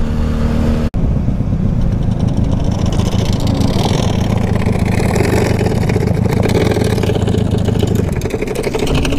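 Cruiser-style motorcycle engine running at road speed with wind noise over the helmet camera's microphone; the engine note drops away near the end as the bike slows down. The sound briefly cuts out about a second in.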